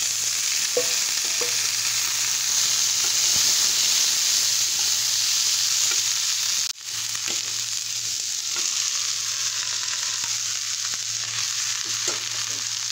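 Chopped vegetables sizzling as they fry in hot oil in a kadhai, stirred with a wooden spatula that scrapes and knocks against the pan now and then. The sizzle cuts out for an instant about seven seconds in.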